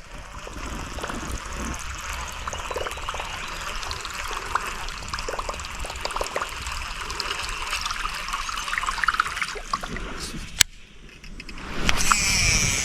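Whopper Plopper topwater lure being reeled across the water, its spinning tail churning up a steady trickling gurgle with small clicks, which stops abruptly about ten and a half seconds in. A rising rush of noise follows near the end.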